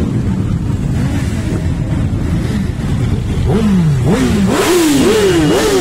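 A column of motorcycles rolling past at low speed, engines rumbling together. About three and a half seconds in, one engine is revved up and down about five times in quick succession.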